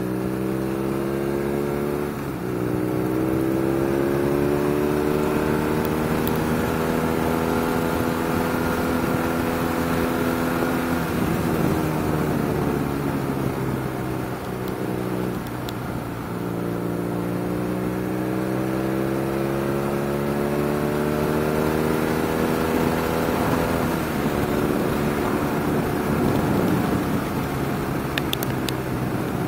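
BMW R nineT's 1,170 cc boxer twin pulling through the gears on the open road, its pitch climbing slowly as the bike accelerates. It eases off about eleven seconds in, climbs again from about sixteen seconds, then holds steady, over wind and road noise.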